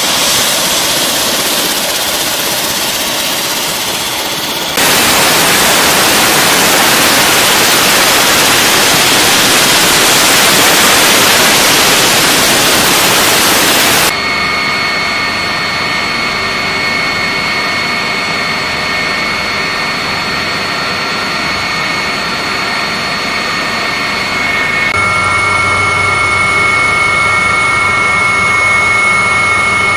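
MH-139 Grey Wolf helicopter (twin PT6C turboshafts) running with its rotor turning. A loud, even rushing noise runs for about ten seconds, and then a steady high turbine whine takes over. Near the end it is heard from inside the cabin, with a low hum underneath.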